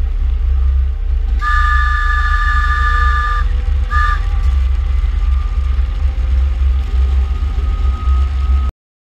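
Clayton CB40 battery electric locomotive on the move, with a heavy low rumble of running noise and wind buffeting on its side-mounted microphone. Its horn sounds one long blast of about two seconds, then a short toot. The sound cuts off suddenly near the end.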